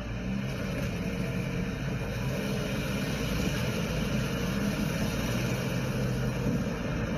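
Car engine and road noise heard from inside the cabin while driving, a steady low hum.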